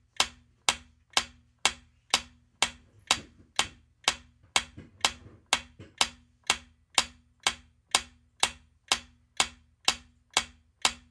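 Quiz countdown-timer sound effect: even clock-like ticks, about two a second, marking the seconds running out for the answer.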